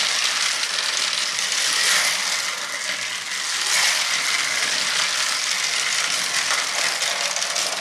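Several battery-powered toy cars running along a flexible plastic race track: a steady mechanical whir of small motors and plastic wheels on the track.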